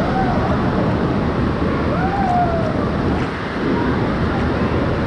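Wave pool water churning and sloshing against a camera held at the water's surface, a steady rushing wash. Faint distant voices call out in the hall behind it.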